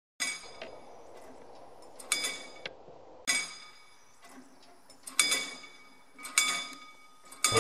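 Mechanical level-crossing barrier bell with a dome-shaped gong, struck six times at uneven intervals of about one to two seconds, each stroke ringing on and fading. It rings as the barrier arm is lowered, warning that the crossing is closing for an approaching train.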